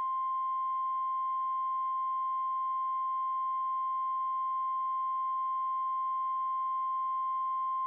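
Emergency alert attention tone: a single steady high-pitched tone of about 1050 Hz, the NOAA Weather Radio warning alarm tone, held unbroken.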